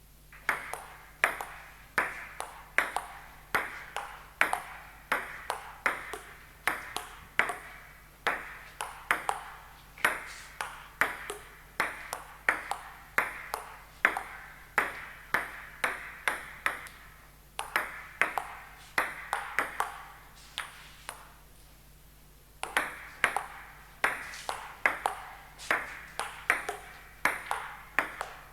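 A sound effect of short sharp taps, each with a brief ringing tail, coming irregularly two or three a second, with a short pause about two-thirds of the way through.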